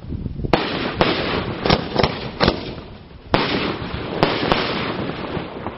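Fireworks display: aerial shells bursting overhead in an irregular series of about eight sharp bangs, some coming in quick pairs, each trailing off into a rumble.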